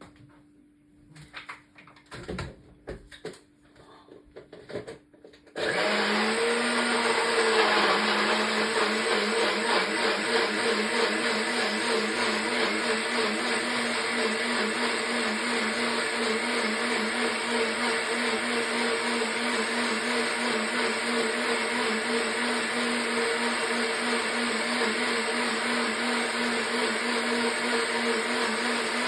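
Blender starting about five and a half seconds in, its motor pitch rising briefly as it spins up, then running steadily as it blends chopped apple, ginger, celery, mint and parsley with water into juice. Before it starts there are a few light knocks and clicks.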